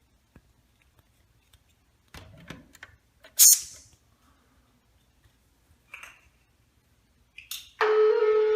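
Scattered clicks and handling noises, with one loud, sharp noise about three and a half seconds in. Near the end, a fire alarm horn starts a steady, loud, buzzing tone. It is the tone of a voice-evacuation alarm that goes on to broadcast a carbon monoxide warning.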